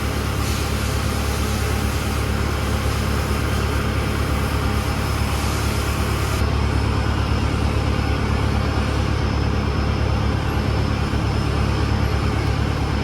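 An engine running steadily at idle, a deep even rumble. A high hiss laid over it stops about halfway through.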